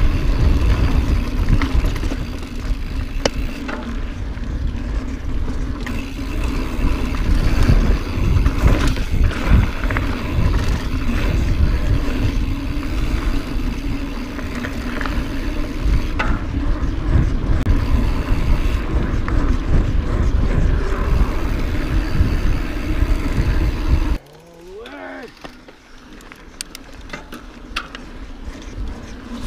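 Mountain bike riding fast down a steep, rough desert trail: a loud, constant clatter of tyres over rock and gravel, with rattling and knocking from the bike. About twenty-four seconds in the noise drops off suddenly to a much quieter rattle, which builds again near the end.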